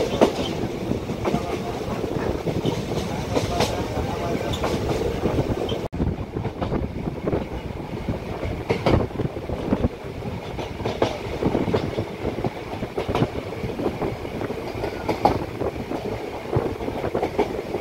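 Passenger train running along the track, heard from inside the coach: steady wheel-and-rail noise with irregular sharp clacks, briefly breaking off about six seconds in.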